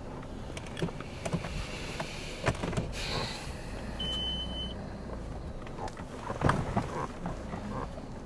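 Inside a police patrol car driving slowly over a rough dirt road: steady engine and road rumble with scattered knocks and rattles from the cabin. A brief high beep sounds about four seconds in.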